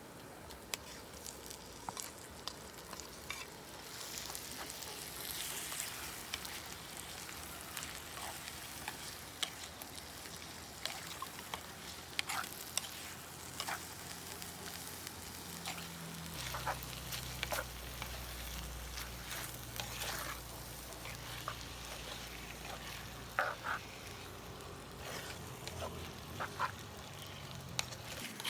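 Food sizzling as it fries in a pan, with frequent sharp clicks and scrapes of a utensil stirring it. A low hum joins in for several seconds past the middle.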